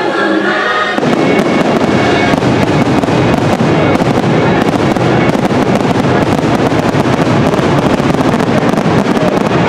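Aerial fireworks bursting in a dense, continuous run of crackles and pops, starting about a second in as show music with singing drops away.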